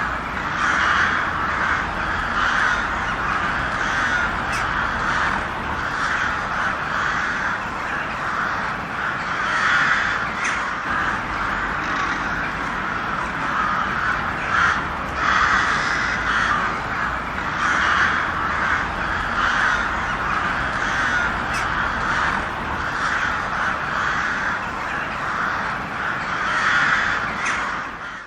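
A flock of crows cawing continuously, many overlapping calls at once. The sound cuts out suddenly at the very end.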